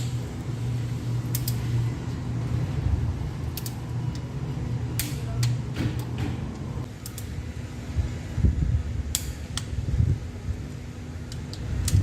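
Steady mechanical hum like a running fan, with scattered sharp metallic clicks and clinks and a couple of dull thuds from hand tools working on the engine's head bolts.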